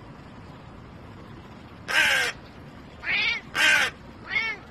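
A crow cawing four times: the first caw comes about two seconds in, and three more follow in quick succession near the end.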